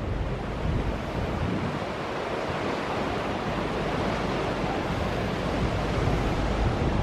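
Sea surf breaking and washing over a rocky foreshore below a sea wall, a steady rushing, with wind buffeting the microphone.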